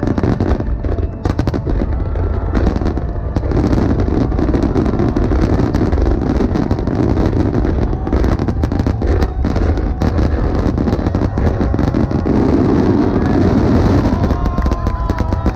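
A rapid, non-stop barrage of aerial firework shells bursting, the grand finale of a fireworks display: countless overlapping bangs and crackles merge into a continuous booming rumble.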